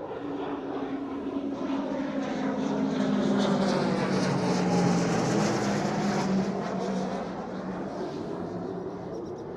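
Light propeller aircraft flying past: its engine and propeller drone swells to a peak about halfway through and then fades, the pitch dropping as it goes by.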